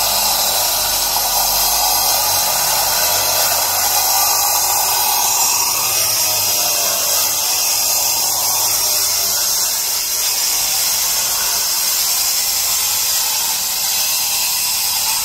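Power tool cutting granite at the stonework, a steady harsh hiss and whine that runs without a break and is fullest over the first six seconds.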